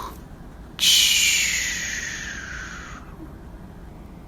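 A page of a picture book being turned: a sudden papery swish about a second in that fades out over about two seconds.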